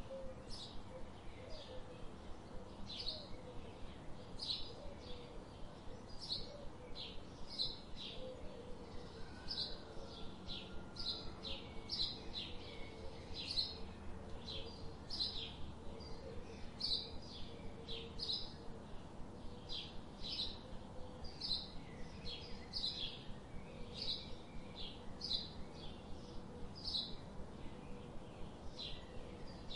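A bird chirping over and over, short high chirps repeating steadily at one or two a second, with a faint steady hum underneath.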